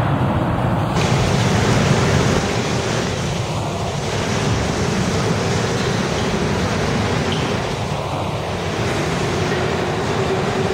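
New York City subway train running into a station past the platform edge: a loud, steady rush of wheels on the rails that grows fuller about a second in.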